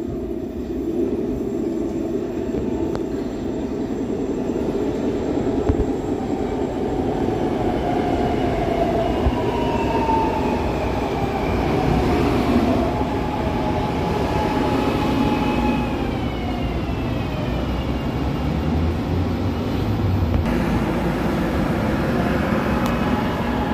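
SEPTA Market-Frankford Line subway-elevated train rolling into the station with a steady rumble that echoes off the concrete structure. Midway, whining tones slide down in pitch.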